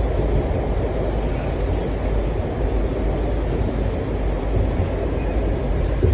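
Washington Metro Red Line train running on the track: a steady, loud low rumble.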